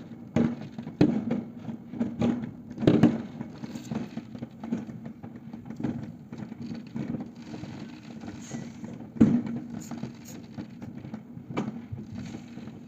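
Fireworks going off: irregular sharp bangs and crackles, loudest about three seconds in and about nine seconds in, over a steady low hum.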